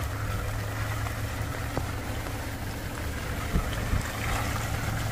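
Off-road 4x4 vehicle's engine running with a steady low drone, with a few light knocks about two, three and a half and four seconds in.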